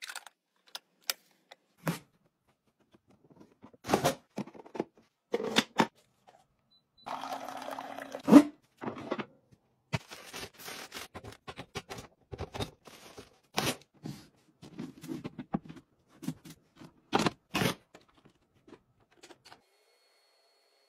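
Scattered handling sounds of household items: short plastic clicks and knocks from a clear plastic jewelry box and its lid being opened and handled, and crinkling plastic food packets set into a wire basket. The loudest is a single knock about eight and a half seconds in.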